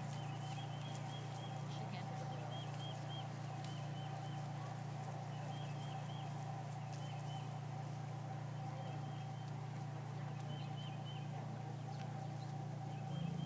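A bird singing short phrases of a few quick high notes, repeated every second or two, over a steady low hum.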